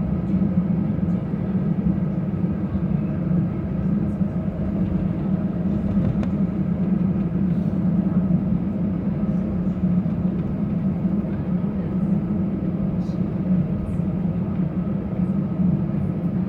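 Steady cabin drone inside an Airbus A319 airliner: engine and airflow noise with a low hum, unchanging throughout.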